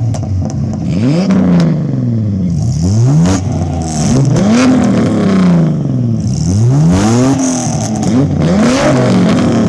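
Naturally aspirated Nissan VG30 V6 being free-revved through an aftermarket exhaust, the pitch rising and falling back with each of several quick revs.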